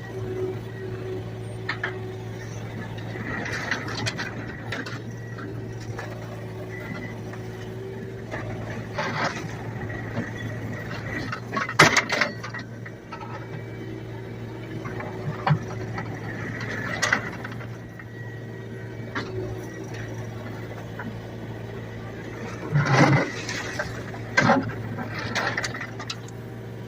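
Kubota mini excavator running steadily, its engine and hydraulics giving a constant drone, with intermittent clunks and scraping clatters as the bucket works a boulder, loudest about twelve seconds in and again near the end.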